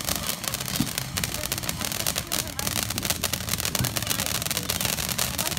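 Fountain firework spraying sparks: dense, rapid crackling over a steady hiss.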